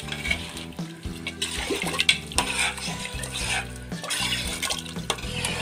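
A spoon stirring watery rice and chicken in a pressure cooker, the liquid sloshing in spells of strokes, over background music.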